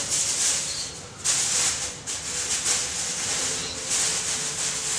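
Aluminium foil crinkling and rustling as it is folded and tucked by hand, in uneven bursts.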